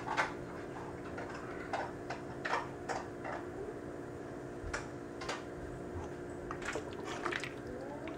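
Light, scattered clicks and ticks of a spoon against a stainless steel pot as salt is added to the vegetable water, over a steady hum.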